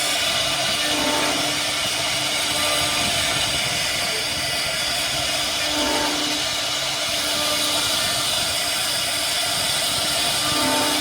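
CNC router spindle running and cutting wood: a steady high hiss over a constant hum, with a slight shift in tone about every five seconds.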